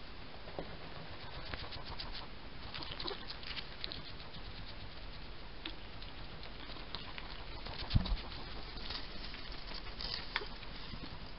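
A hedgehog moving right by the microphone: light pattering, scratching clicks and rustles, with one heavier thump about eight seconds in.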